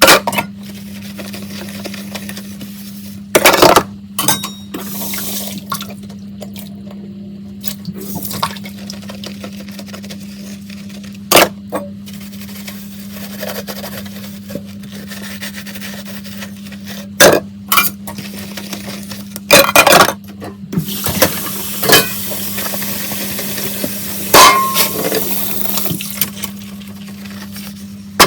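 Dishes clinking and knocking in a kitchen sink, a handful of separate sharp clatters, over a steady low hum. Tap water starts running about three quarters of the way through.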